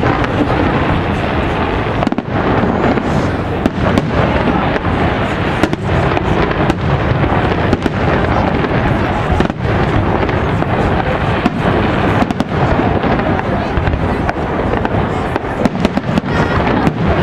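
Fireworks display: aerial shells bursting in a dense, continuous barrage, the booms and crackles following one another with no gaps.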